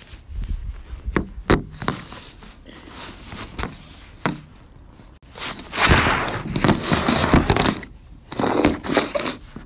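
Handling noise on the camera's microphone: knocks and clicks, then loud rubbing and rustling about six seconds in and again near the end as a hand brushes against the phone.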